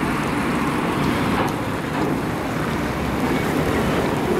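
Freight train of open gondola wagons rolling across a street level crossing: a steady rumble of steel wheels on rail, mixed with street traffic.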